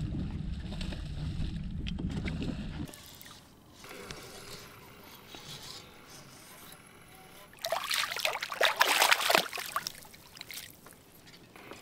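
Wind rumbling on the microphone until it cuts off about three seconds in; then, from about eight seconds in, a hooked largemouth bass thrashing and splashing at the surface as it is reeled to the boat.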